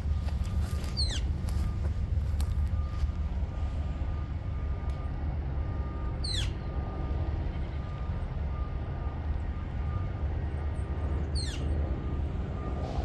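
Northern flicker calling: three short, high, downslurred calls about five seconds apart, over a steady low background rumble.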